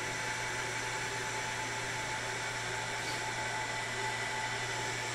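Steady fan-like whir with a low electrical hum and faint steady whines, with no distinct events.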